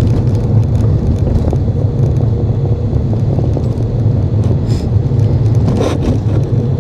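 Car driving slowly, heard from inside the cabin: a steady low engine and road rumble with a faint hum, and a few light clicks about two thirds of the way through.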